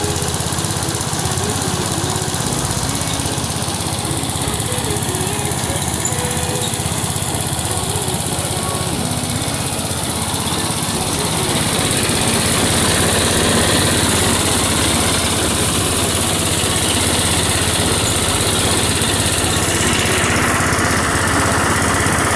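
Small petrol engine running steadily, driving a homemade rice thresher; it gets a little louder about halfway through.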